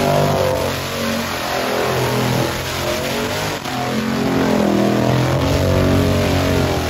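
Car engine revving hard and over and over during a tyre-smoking burnout, its pitch climbing and dropping repeatedly over the hiss of spinning tyres.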